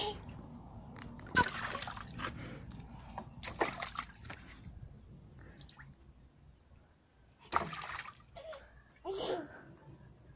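Water splashing in several separate bursts, about a second and a half in, around four seconds in and twice near the end, with a toddler's short vocal sounds between them.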